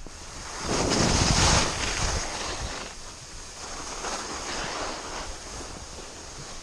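Skis scraping and carving over chopped-up snow on a downhill run, with wind rushing over the action camera's microphone. A loud surge of scraping about a second in, then softer swells as the turns go on.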